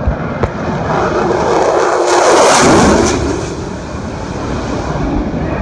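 Thunderbirds F-16 fighter jets flying over: a jet roar that swells to its loudest about two and a half seconds in, sweeping in pitch as it passes, then fades.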